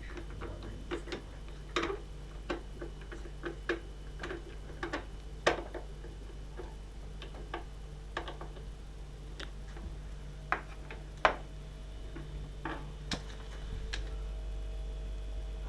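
Irregular light clicks and taps, a few sharper knocks among them, like small parts and tools being handled during repair work, over a steady low hum that gets a little louder near the end.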